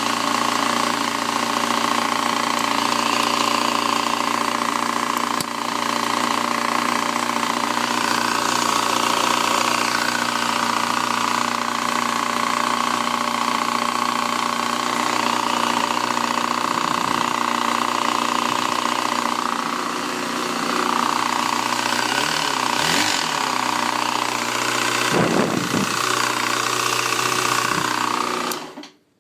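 2007 Yamaha FZ6's inline-four engine running steadily with a ticking noise, which the owner traced to a piece of clutch wedged between the crankshaft gear and the clutch basket gear, making the gears chatter. The sound cuts off abruptly near the end.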